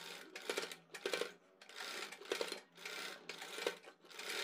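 Sewing machine stitching in short runs, about two a second, stopping and starting between them, as it bastes a neckline pattern onto fabric.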